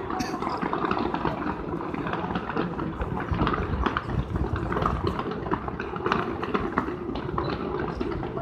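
Fireworks display going off, a continuous rapid crackle of many small bangs and pops.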